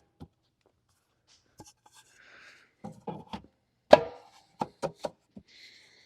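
Wooden fence pickets knocking and clacking as they are pushed together and fitted into the rail's plastic reducer pieces: a scatter of short, sharp knocks, the loudest about four seconds in, with a brief sliding rub about two seconds in.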